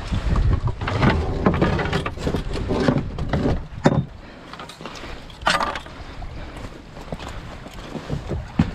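Footsteps crunching on beach pebbles and an inflatable boat being handled, with a busy stretch of small clicks and rumbling handling noise in the first half and a couple of sharp knocks about four and five and a half seconds in.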